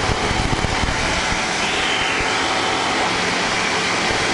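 Cockpit noise of a Tecnam P92 Eaglet light aircraft in its climb after takeoff: the piston engine and propeller running steadily at climb power.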